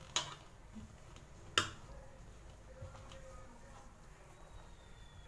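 Mashed potato and bread-crumb dough being kneaded by hand in a bowl, mostly faint, with two sharp knocks about a second and a half apart.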